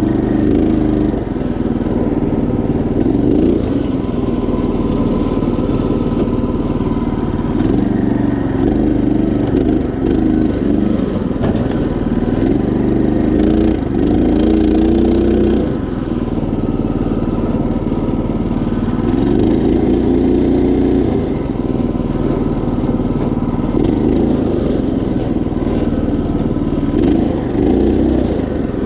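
Predator 212 single-cylinder engine on a Craftsman GT5000 garden tractor running under load as the tractor is driven. Its note rises and falls several times with throttle and load.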